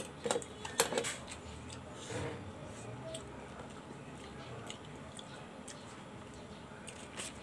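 Scallop shells clinking against each other and the pan as they are handled: a few sharp clicks in the first second, then a softer scrape about two seconds in, and only faint small ticks after.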